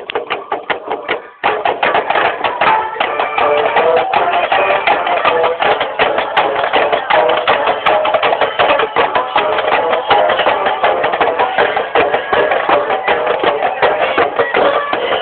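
Loud music with a fast, dense percussion beat under a melody, growing louder after a brief dip about a second and a half in.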